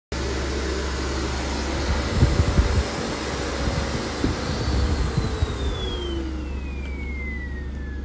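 Cirrus canister vacuum cleaner running, with a few dull knocks in the first half. From about halfway through, its motor whine falls steadily in pitch and the rush of air fades as the suction is turned down to the minimum setting.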